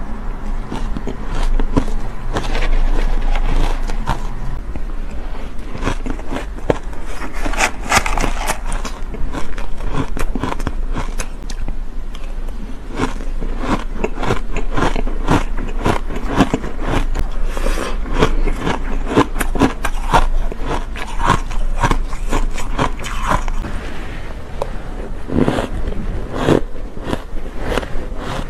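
Mouthfuls of shaved ice crunched and chewed close to a clip-on microphone: a dense, continuous run of crisp crackling crunches.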